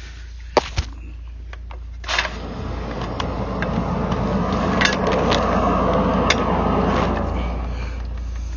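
High-pressure sewer jetter at work, its Jet Axe root-cutting nozzle going at a tree-root blockage in the pipe. A steady low hum runs under a few sharp clicks in the first second or so. A rushing noise of water-jetting builds from about two and a half seconds in and eases off near the end.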